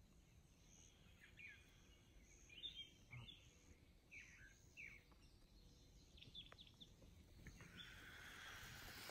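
Faint dawn birdsong: scattered short, falling chirps from birds in the trees, with a soft rustling hiss that rises near the end.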